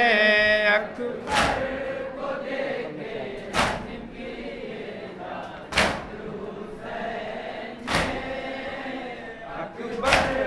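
Mourners beating their chests in unison (matam): a single loud slap about every two seconds, five in all, with a group of voices chanting the refrain between the strikes. The lead reciter's sung line trails off about a second in.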